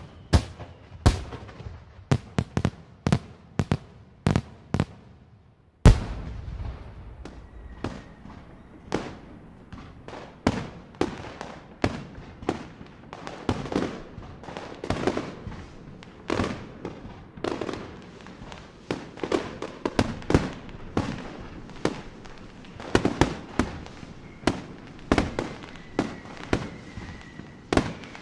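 Fireworks display: aerial shells bursting in a rapid series of sharp bangs, one to two a second. After a very loud bang about six seconds in, a dense crackle fills the gaps between bangs, and a thin whistling tone sounds near the end.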